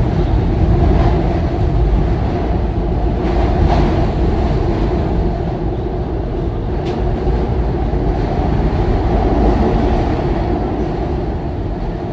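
Inside a SEPTA Market-Frankford Line subway car: the steady, loud rumble and rail noise of the train running, with one short sharp click about seven seconds in.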